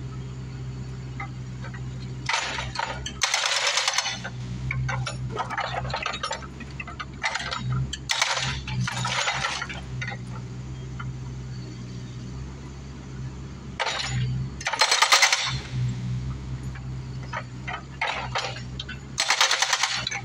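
Bobcat 331 mini excavator's engine running steadily while its hydraulic rock hammer pounds concrete in several bursts of rapid blows, each a second or two long.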